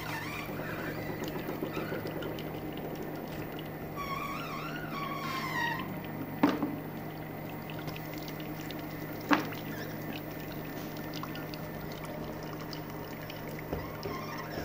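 Stainless steel CP-20s cold screw oil press running steadily with a low hum while pressing apricot kernels. Two sharp knocks come about six and nine seconds in. A brief wavering high-pitched call sounds between about four and six seconds.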